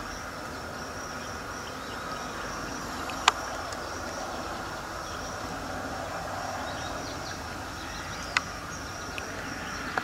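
Steady outdoor background with an even high-pitched buzz over a low rumble, broken by two short sharp clicks, one about three seconds in and one about eight seconds in.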